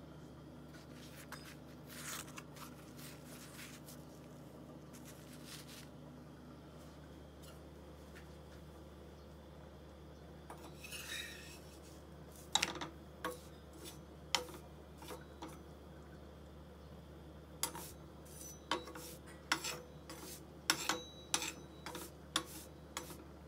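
Metal slotted spatula clicking and scraping against a skillet while turning flatbread: a few soft scrapes early, then a dozen or so sharp taps in the second half, over a steady low hum.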